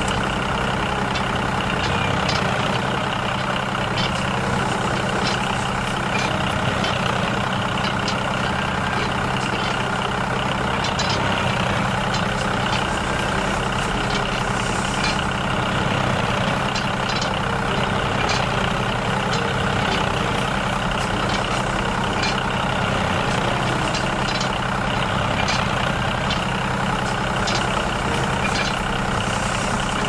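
An engine running steadily at idle, an even drone that does not change, with faint light ticks scattered through it.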